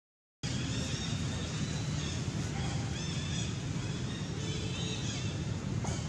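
Outdoor ambience: a steady low rumble with several short, high chirping animal calls scattered through it. The sound cuts out completely for a moment at the very start.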